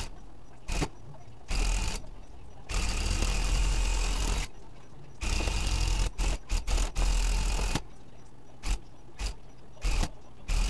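Electric tufting gun running in stop-start bursts as it shoots yarn through the backing cloth. There are two short bursts, then one run of about two seconds about three seconds in, then a string of short bursts.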